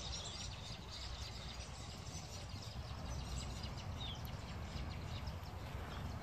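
Wild birds chirping with short, repeated calls, over a steady low background rumble.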